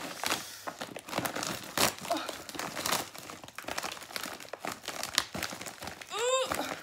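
Crinkling and tearing of a pink metallic plastic mailer bag being pulled open by hand, in irregular crackling bursts. About six seconds in, a brief strained vocal sound of effort.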